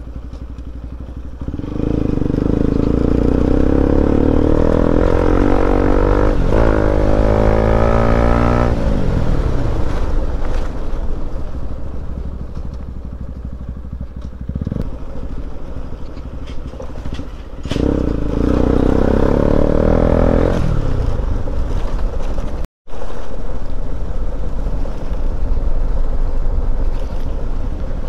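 Motorcycle engine running while riding, over steady wind noise on the microphone. Twice the engine note swells, and each time it slides down in pitch as it eases off. There is a brief dropout of all sound about four-fifths of the way through.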